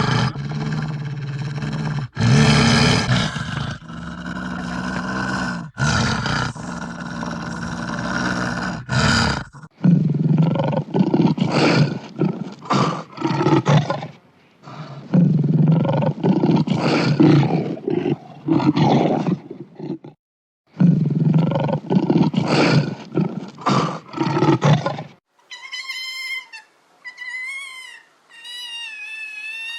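A large wild predator roaring in long, loud roars. These give way after about ten seconds to shorter, deep, repeated roaring growls with brief pauses. Near the end there is a run of fainter, high, wavering chirping calls.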